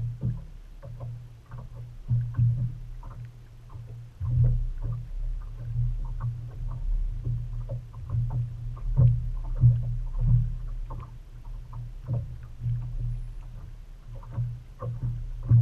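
Small waves slapping irregularly against the hull of a bass boat, over a low steady hum.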